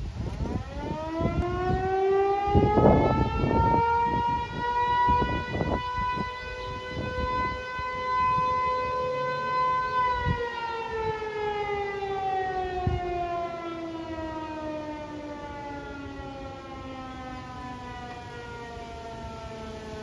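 Electromechanical outdoor warning siren sounding its noon blast: it winds up to a steady high pitch over several seconds, holds, then winds down slowly from about ten seconds in. Gusts of wind hit the microphone in the first few seconds.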